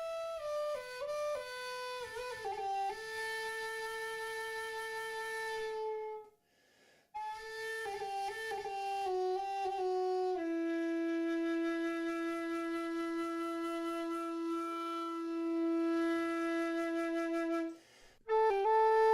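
A flute-like wind instrument playing a slow melody: a phrase of short stepping notes settling on a held note, a pause, then a second phrase ending in a long, steady low note held for about eight seconds.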